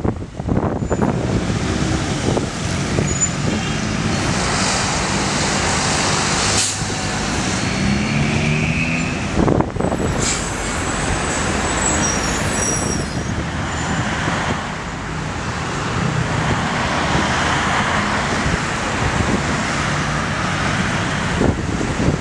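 Heavy road traffic on a busy multi-lane city avenue: cars and city buses passing with a steady engine drone and tyre noise, and a brief sharp noise about ten seconds in.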